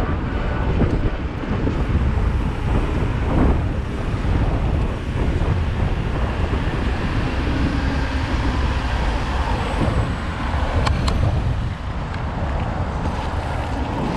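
Car on the move: a steady rumble of engine and road noise, strongest in the low end.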